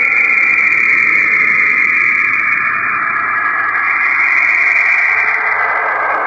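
The 'sound of Saturn', a space recording of radio emissions turned into audio: a steady, eerie hissing drone with a few held high-pitched tones inside it.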